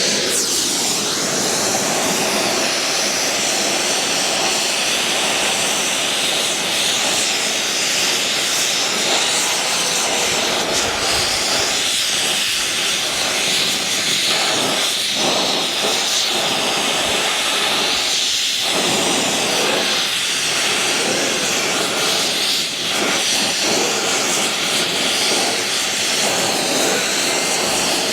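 Gas torch running with a steady, loud hissing roar, heating the mould and crucible before molten lead is poured.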